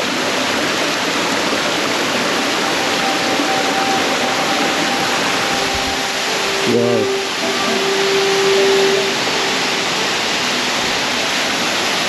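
Steady rush of a three-tiered waterfall pouring into a rock pool. A few faint held tones come in partway through, with a short voice-like sound about seven seconds in.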